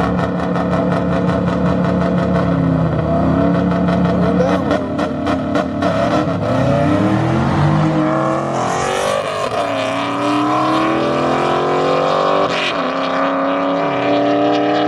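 Two cars launching side by side in a street drag race, engines revving hard with a rapid crackle at the launch, then climbing in pitch and dropping back several times as they shift up through the gears.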